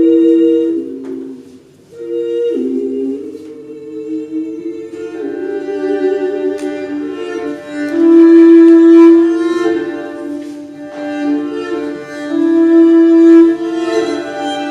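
Instrumental music led by bowed strings, with long held notes in a slow melody; it drops away almost to nothing for a moment about two seconds in.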